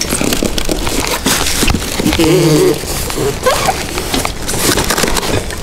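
Plastic wrap and foam packaging rustling and crinkling as a boxed table saw is unpacked by hand, with a brief pitched sound a little past two seconds in.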